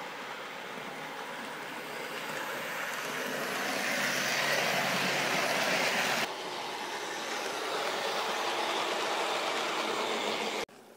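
Model AEC railcar running along model railway track: a steady rushing rattle of motor and wheels that swells as it draws near. The sound changes level abruptly about six seconds in and drops sharply near the end.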